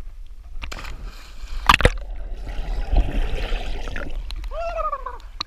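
Water splashing right at a waterproof action camera held at the lake surface, with a sharp splash about two seconds in, then about two seconds of churning and bubbling as the camera goes under. A short voice near the end.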